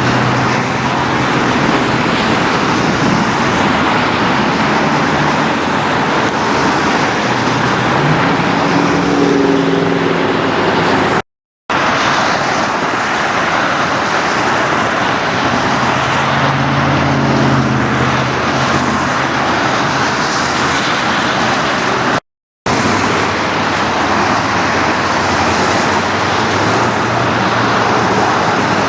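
Road traffic passing steadily: vehicle engines rise and fall as they go by, over a constant hiss. The sound cuts out abruptly for a moment twice, about 11 and 22 seconds in.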